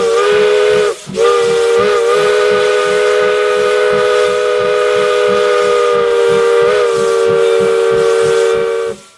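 The whistle of Polson Logging No. 70, a Baldwin steam locomotive, sounding a chord of several notes: a short toot, a brief break about a second in, then one long blast that cuts off near the end. The locomotive's exhaust chuffs in an even beat underneath, about three to four a second.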